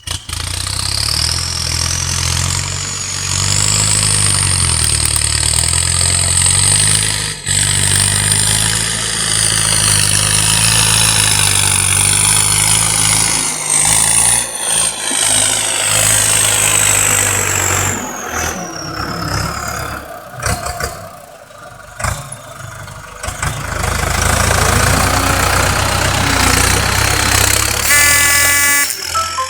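Ford tractor engine with an added turbocharger revved up, the turbo's high whistle climbing as it spools, holding, then sliding down as the revs fall. The engine drops back unevenly for a few seconds before revving up again.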